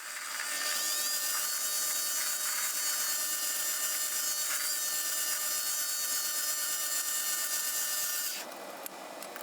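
Mini lathe motor spinning up and running steadily, a high whine with several steady tones, as a facing cut is taken on the end of a branding-iron blank. It stops about eight seconds in.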